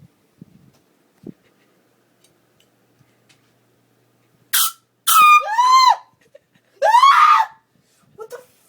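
A short, loud blast about four and a half seconds in, then a woman's startled screams, twice, each sliding up and down in pitch.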